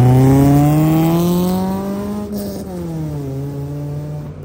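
Honda Civic's four-cylinder engine revving hard as the car pulls away and accelerates, its pitch climbing steadily for about two seconds, then dropping and holding a lower steady note.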